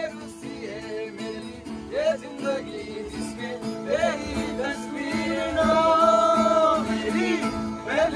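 Acoustic guitar strummed as accompaniment while a man sings a Hindi song melody without clear words, holding one long note in the middle.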